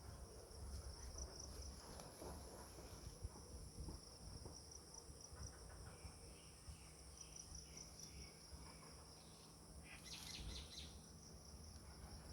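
Faint outdoor ambience of insects trilling steadily at a high pitch. Short bird-like chirps come through in the second half, the loudest about ten seconds in.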